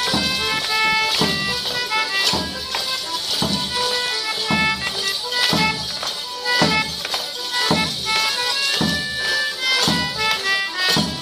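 Live traditional English morris dance tune played on a reedy wind instrument, with a steady thump about once a second and the constant jingle of the dancers' bells.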